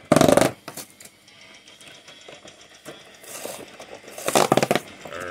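Cardboard doors of a Pokémon TCG advent calendar being torn open by hand: two short ripping bursts, one right at the start and one about four seconds in.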